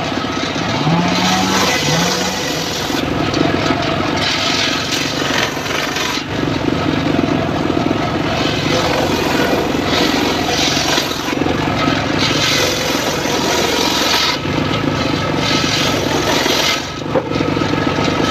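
Engine-driven homemade table circular saw running steadily, its blade ripping through teak boards over and over; each cut, a couple of seconds long, brings a hissing whine over the engine drone.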